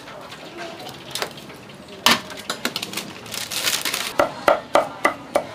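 Food-stall prep clatter: a few sharp clicks and a brief scattering rustle as garlic and basil land in a metal tray of fried crab, then steady knocks about three a second from about four seconds in, a cleaver chopping on a wooden board.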